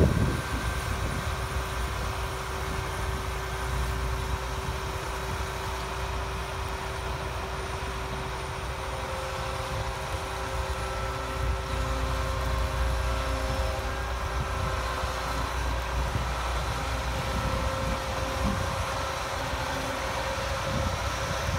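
John Deere S670 combine's diesel engine running steadily as the machine drives slowly, a low rumble carrying a faint steady tone.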